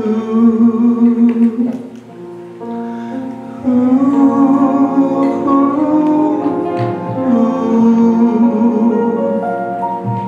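Pop ballad backing track with guitar and a sustained melody line playing an instrumental break between sung lines.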